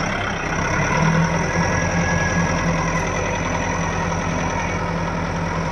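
Kubota 4WD tractor's diesel engine working steadily under load as the tractor strains to climb a sand ledge. The engine note firms up about a second in and then holds steady.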